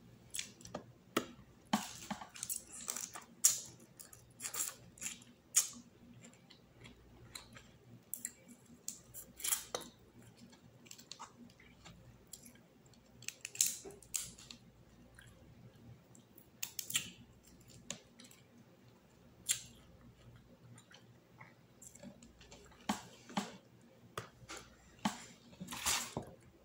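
Close-up eating sounds: chewing and wet mouth smacks, with crisp clicks and crackles as a cooked shrimp is pulled apart and peeled by hand. The sounds come in irregular clusters with quieter gaps between.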